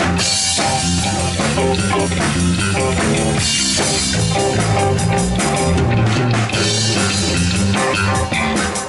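A rock band playing instrumentally on drum kit and guitar, as in a live jam.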